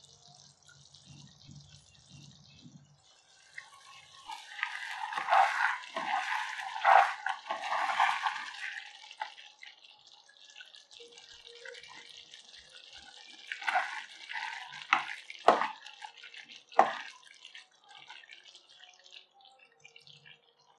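Thick tomato-and-cream chicken tikka masala gravy simmering in a pan and being stirred with a spoon: wet squelching and sloshing for several seconds, then a handful of sharp wet plops.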